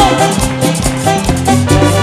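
Live band playing an instrumental passage, saxophones among the instruments, over a steady beat.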